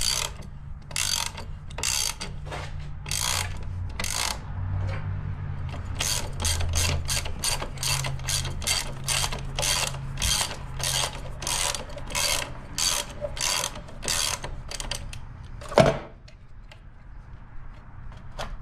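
Socket ratchet wrench clicking as it backs out an engine-mount bolt. There are slow strokes at first, then a quicker run of about four clicks a second, and a single sharp clank near the end.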